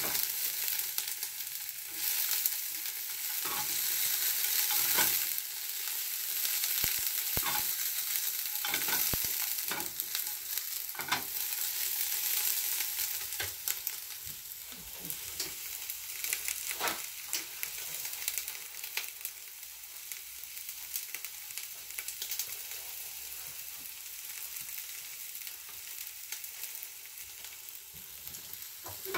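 Green peppers stir-frying in olive oil in a pan, sizzling steadily, with a utensil clicking against the pan now and then. The sizzle grows quieter over the second half.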